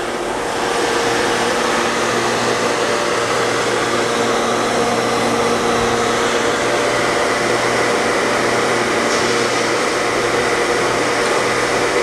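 Electric motor driving a high-temperature double-mechanical-seal centrifugal pump, running steadily with a constant hum and fan rush. It is in normal running after start-up, its sound and vibration judged normal.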